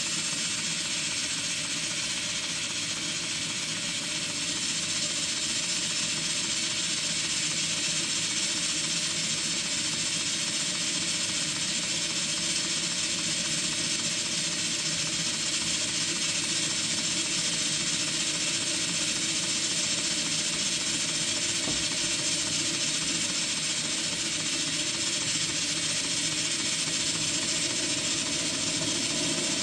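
Stuart Turner twin launch model steam engine running steadily on live steam, with a continuous hiss. It gets a little louder about four seconds in.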